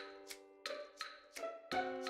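Background music: light instrumental tune with plucked or struck notes over held chords and soft ticking percussion.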